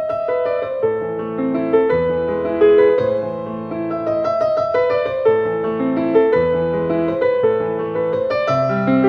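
Background piano music, a slow melody played over sustained chords.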